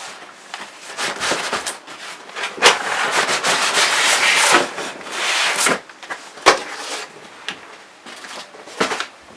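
Cardboard box and packaging being handled and rubbed, in several irregular rustling bursts, with a sharp knock about six and a half seconds in and another near the end.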